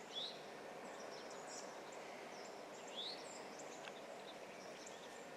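Quiet woodland ambience: a steady low hiss with scattered bird chirps, including two short rising chirps about three seconds apart.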